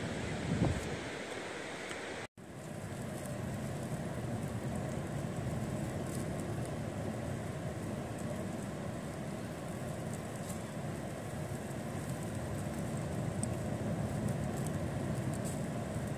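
Steady low rumble of wind and sea surf at the shore, with wind buffeting the microphone. It cuts out for a moment about two seconds in.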